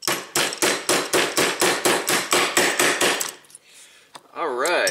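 Rapid, evenly spaced hammer taps on a steel pin punch, about six a second, stopping a little over three seconds in. The punch is driving a tight-fitting hammer pin out of a Beretta 92 pistol frame.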